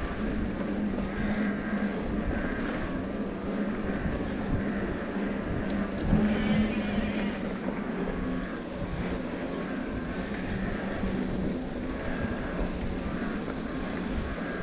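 Mountain bike rolling over a rocky trail: steady tyre and drivetrain noise with irregular knocks and rattles.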